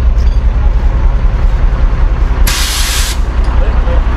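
Heavy tow truck's engine running with a steady low rumble. About two and a half seconds in, a sharp hiss of released air lasts under a second.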